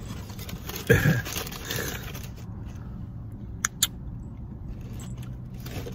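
Ranch sauce squeezed from a small plastic dipping cup onto a burger and the food handled: soft squishing and rustling, a short louder sound about a second in, and two sharp clicks close together a little past the middle.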